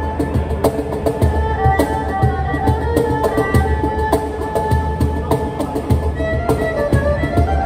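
Improvised erhu and cajon jam: the erhu bows a melody of held notes, with one note bending in pitch near the end, over a steady cajon rhythm of low bass thumps and sharp slaps.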